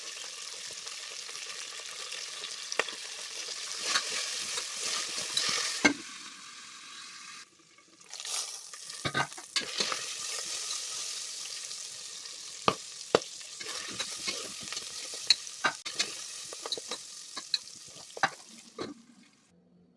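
Food frying in hot oil in a pan, sizzling steadily while a spoon stirs it, with sharp clicks of the spoon striking the pan. The sizzle breaks off briefly about seven seconds in and fades near the end.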